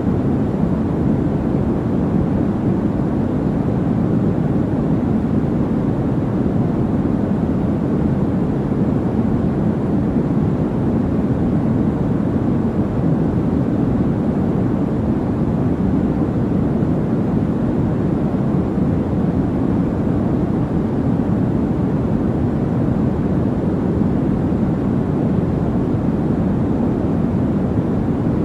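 Steady sleep-aid noise, deep and even, with most of its energy low and little treble; it does not change.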